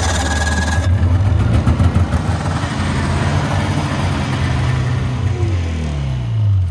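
Vehicle engine running at a steady speed after a sudden start; near the end its pitch falls as it slows down.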